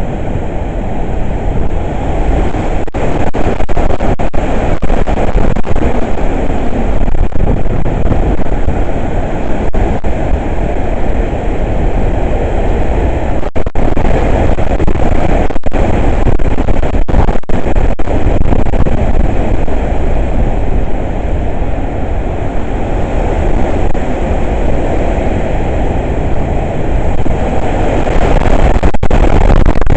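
Hurricane wind blowing hard across the microphone: a loud, steady, deep rumble that swells with the gusts, strongest at the very start and again near the end.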